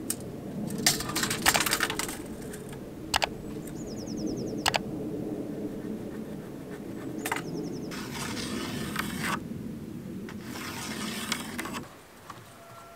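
Pencil scratching along a metal rule as a cutting line is drawn on an old wooden board, in two strokes of about a second each in the second half. Earlier come several sharp clicks and taps from the steel tape measure and rule being set against the board.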